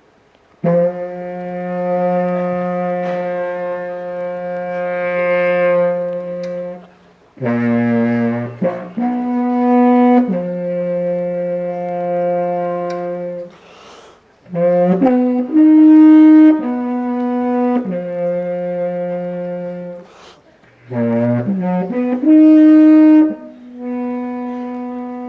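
Reproduction ancient horn played in long held notes with a very rich series of overtones. It moves between several pitches, with short breaks between phrases and a few quick, lower notes in between.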